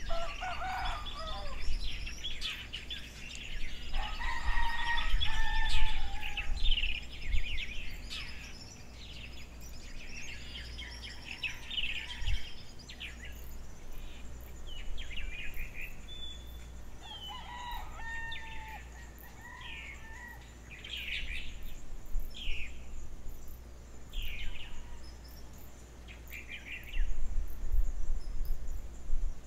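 Morning birdsong: many small birds chirping and calling over and over, with a rooster crowing a few seconds in and again past the middle.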